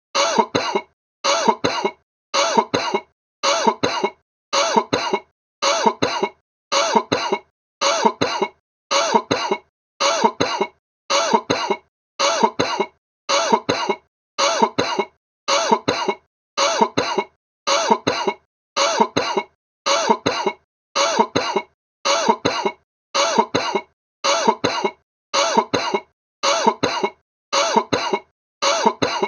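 A sick person's cough: two quick coughs at a time, repeated about once a second at a perfectly even pace, each repeat the same as the last.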